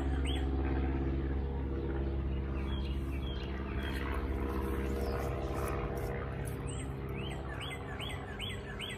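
A songbird chirping in a quick repeated series, about three chirps a second, just at the start and again from about six seconds in. A steady low hum runs underneath throughout.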